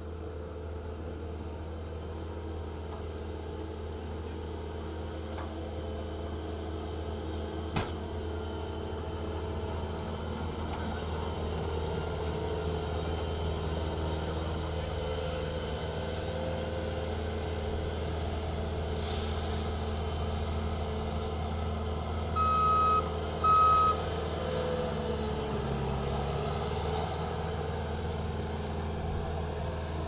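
Heavy construction equipment engine running steadily. Partway through there is a short burst of hiss, then two loud short beeps about a second apart, like a backup alarm.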